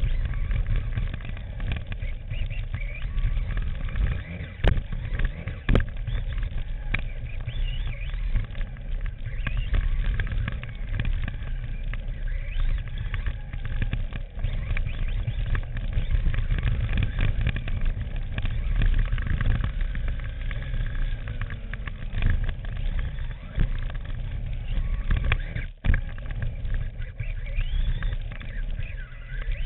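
Onboard sound of an electric stock short course RC truck lapping a dirt track: a steady low rumble of the chassis and tyres over the dirt, with the electric motor's whine rising and falling as the truck speeds up and slows, and scattered sharp knocks from bumps and landings.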